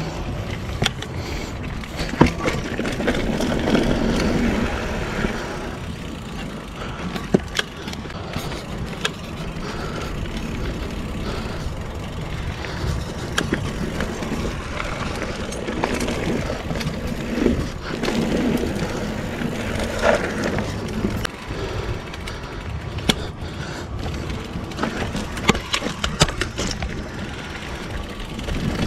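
Full-suspension mountain bike (a 2015 Giant Trance) ridden over a dirt singletrack: steady tyre rumble and wind noise on the microphone, with many sharp clicks and knocks from the bike rattling over bumps.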